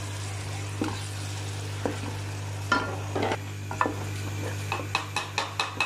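Wooden spoon stirring a tomato-onion masala frying in oil in a metal pot: a steady sizzle, with the spoon scraping and knocking against the pot now and then and several times a second near the end, over a steady low hum.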